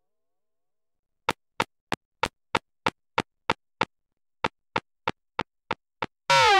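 A series of short, identical ticks, about three a second: nine in a row, a brief pause, then six more. Near the end a loud, dense sound with many falling pitches cuts in suddenly.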